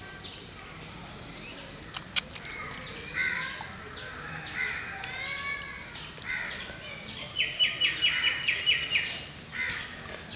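Birds calling, with a mix of short chirps and gliding calls, and about three-quarters of the way through a quick run of about nine sharp, high notes, the loudest sound.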